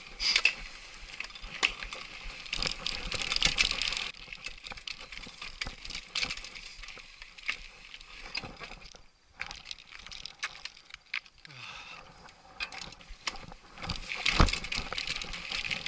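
Trek Superfly mountain bike riding down a rocky dirt trail: tyres rolling and crunching over dirt and stones, with rattles, clicks and knocks from the bike over bumps. It is rougher and louder in the first few seconds and again near the end.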